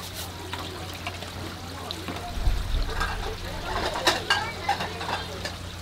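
Water trickling steadily, with a few sharp clicks and knocks of abalone shells being scrubbed and handled on a plastic cutting board, loudest about four seconds in.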